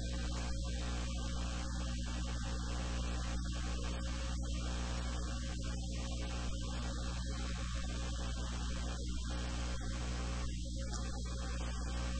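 Steady electrical mains hum with static hiss and a thin, steady high whine.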